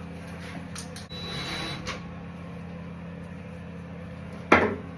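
Work noise while a shower door is being installed: a short scrape, then one sharp knock about four and a half seconds in, over a steady low hum.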